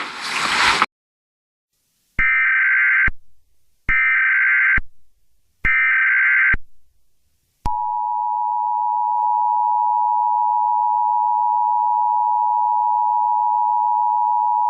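Emergency Alert System header: three short bursts of warbling SAME data tones, about a second each, followed about eight seconds in by the steady two-tone EAS attention signal, which holds. The sequence announces an incoming alert, here a flash flood warning. Before the tones, a burst of noise cuts off within the first second.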